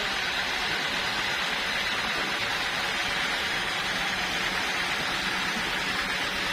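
Sawmill machinery running steadily: an even hiss with a faint low hum underneath.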